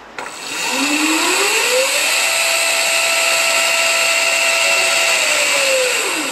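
X7 electric scooter's motor spinning the rear wheel through its chain drive as a test of the newly fitted, adjusted pressure sprocket: a click, then a whine that rises for about a second and a half, holds steady for about three seconds and falls away near the end, over the hiss of the chain running.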